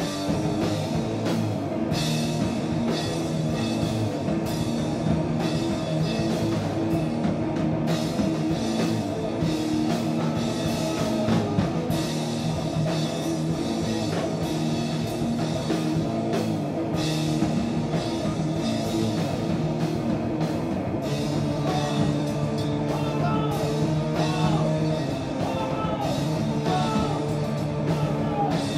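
Heavy rock played live by a duo on electric guitar and drum kit: sustained guitar chords over drums, with cymbals struck throughout.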